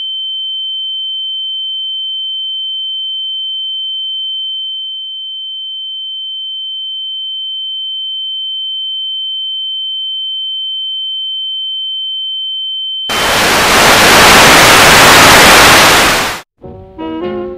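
A steady high-pitched electronic sine tone held for about thirteen seconds, then cut off by a loud burst of static hiss lasting about three seconds that stops abruptly.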